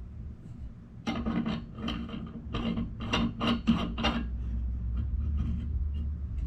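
Quick rasping strokes of hand-rubbing on a metal plumbing fitting, about three a second, over a steady low hum. The strokes start about a second in and fade after about four seconds.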